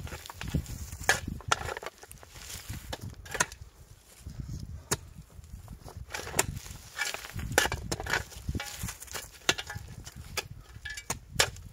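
A pickaxe and a shovel digging stony soil: irregular sharp knocks and scrapes of metal blades striking earth and stones.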